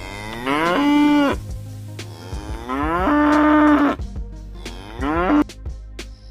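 Cow mooing three times, each call rising in pitch and then held; the middle call is the longest, the last one short.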